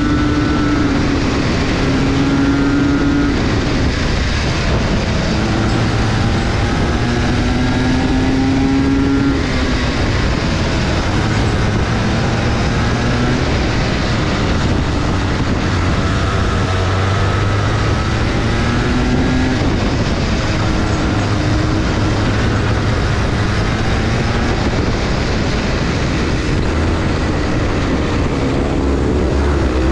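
Go-kart engine running hard under race conditions, its pitch repeatedly climbing for a few seconds and then dropping back, over steady wind and track noise.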